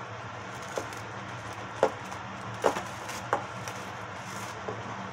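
Kitchen handling noise: about five sharp knocks and clicks of bowls being moved and set down on the counter, over a steady low hum.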